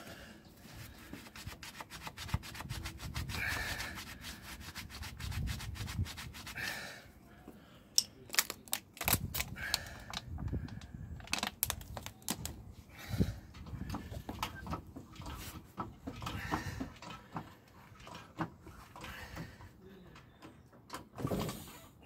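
Rubber tyre and a steel tyre lever being worked against an alloy wheel rim to break the bead by hand: rubbing and scraping, broken by irregular sharp knocks and clicks.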